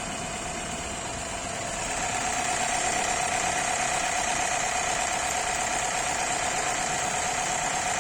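Jack 20U zigzag industrial sewing machine running steadily while sewing a zigzag stitch, a continuous motor whine with the needle mechanism working underneath. It gets a little louder about two seconds in.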